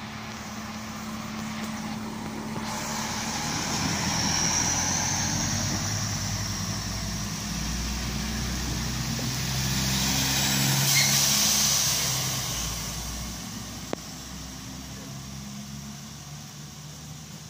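Koleje Dolnośląskie SA134 two-car diesel railcar pulling away from the platform, its diesel engine running under power as it accelerates past, swelling twice and then fading as it draws away. Steady rain hiss underneath, and one sharp click about 14 seconds in.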